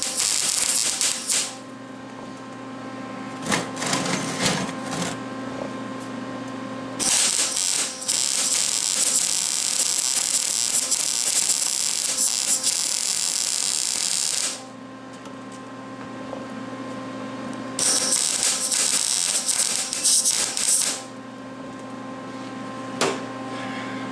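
MIG welder arc crackling as weld beads are run along the seams of a metal box, in three runs: a short one at the start, a long one of about seven seconds, and another of about three seconds near the end. A steady hum carries on between the runs.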